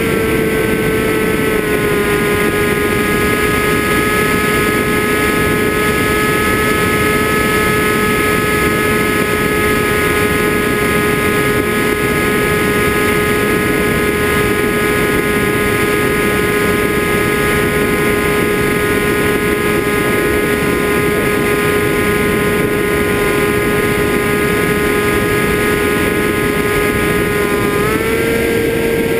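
FPV drone's motors and propellers whining at a steady pitch. The pitch drops slightly about a second and a half in and rises again near the end.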